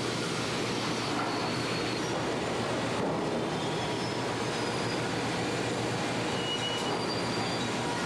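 Steady noise of sawmill machinery running, conveyors and rollers moving lumber, with brief high metallic squeals now and then.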